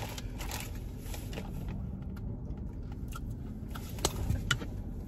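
Quiet car cabin with a low steady hum, and a few soft clicks and scrapes of a plastic spoon working in a milkshake cup, the clearest a little after four seconds and again shortly after.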